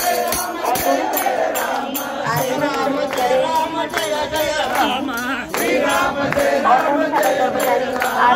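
A group of people singing a devotional chant together, with rhythmic hand-clapping at about three claps a second.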